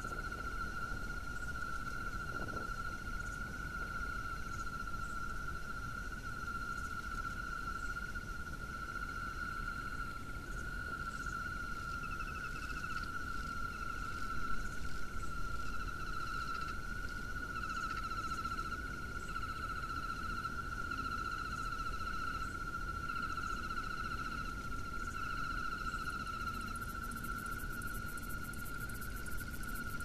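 A steady outdoor chorus of small calling animals: one continuous high trill throughout, with shorter pulsed trills coming and going higher up through the middle, over a low rumble.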